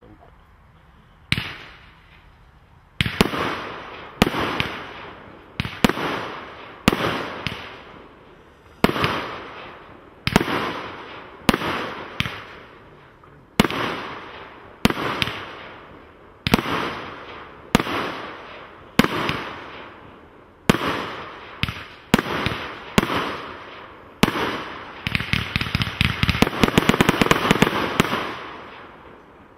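A Royal Party TNT 79-shot single-ignition firework barrage firing shot after shot, about one a second. Each shot is a sharp bang followed by a long echoing fade. Near the end the single shots give way to a dense run of rapid crackling.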